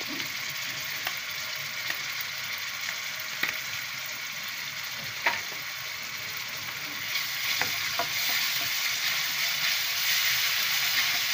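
Chopped small onions and ginger-garlic paste sizzling in hot oil in a pan, with a few sharp clicks here and there. The sizzle grows louder about seven seconds in as the mixture is stirred with a spatula.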